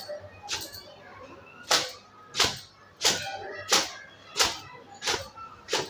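Wet hair being beaten with a towel: a regular run of sharp slaps, about eight in all, one every three quarters of a second or so.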